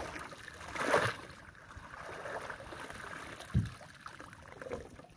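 Wet fishing net being hauled up out of the lake into a canoe, with water splashing and dripping off the mesh. There is a louder splash about a second in and a short dull thump about three and a half seconds in.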